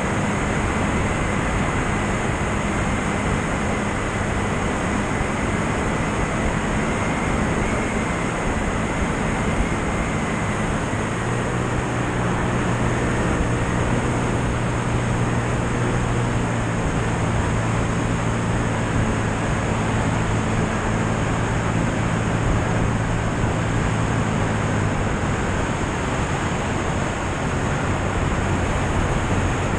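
Light aircraft in flight, heard from a wing-mounted camera: a steady rush of airflow over a low piston-engine and propeller drone, whose pitch shifts slightly about ten seconds in.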